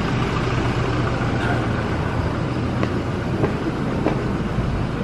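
Steady low rumble of road traffic on a city street, with a few faint footfalls on pavement.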